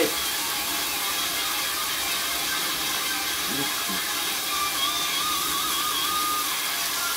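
Food sizzling in a hot electric tabletop pan: a steady crackling hiss of frying.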